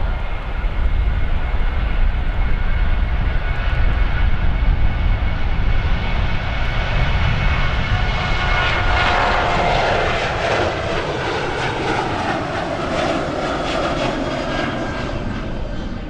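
Boeing 737 twin-jet at takeoff thrust, rolling down the runway and lifting off: continuous jet engine noise with a whining fan tone. About nine seconds in the sound grows brighter and the whine slides down in pitch as the plane climbs past.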